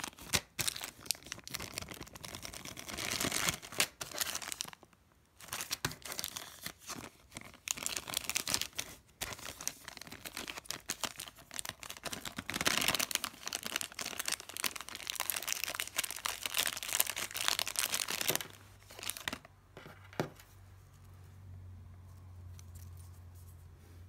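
Clear plastic bag crinkling and tearing as it is pulled open by hand, a dense crackling rustle in stretches with short pauses, stopping about three-quarters of the way through.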